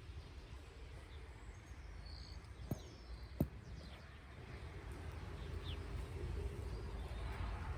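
Faint outdoor background noise with a low rumble and a few faint bird chirps, broken by two sharp clicks less than a second apart about three seconds in.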